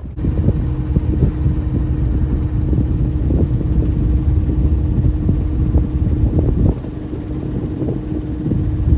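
Sailboat's engine running steadily under way, a constant hum under a gusty low rumble of wind buffeting the microphone.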